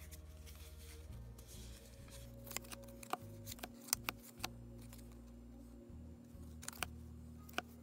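Baseball cards being flipped through by hand: a scatter of short, sharp clicks and snaps of card stock, over faint background music.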